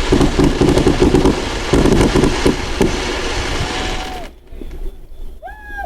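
Fireworks finale: a dense, rapid barrage of bangs and crackling that stops suddenly about four seconds in. A faint, short pitched sound follows near the end.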